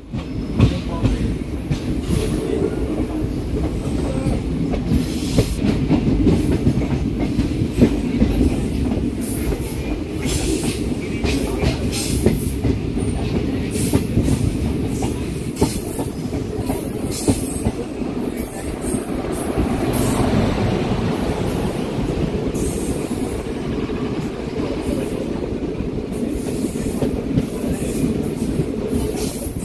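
Passenger train running, heard from an open coach door: a steady rumble of wheels on rail, with frequent short, sharp high-pitched clicks and squeals from the wheels.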